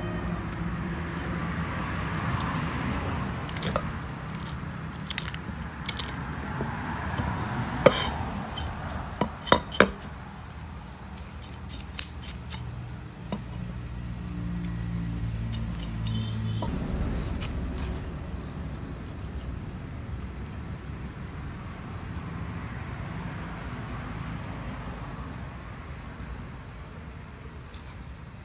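Knife blade scraping scales off a whole fish on a wooden chopping board in repeated rasping strokes, with sharp clicks of the blade against the board, clustered about a third of the way in.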